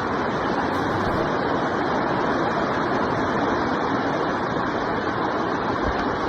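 Heavy rainstorm: a steady, loud rush of downpour and wind.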